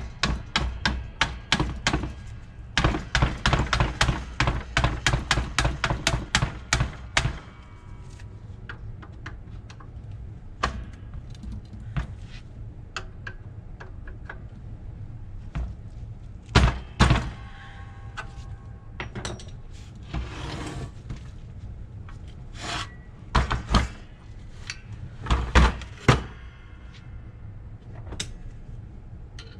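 Rapid hammer taps on metal, about three or four a second for the first seven seconds, then scattered single knocks, some leaving a short metallic ring: bending back the lock-tab washers on a Rolls-Royce Phantom III front brake backing plate.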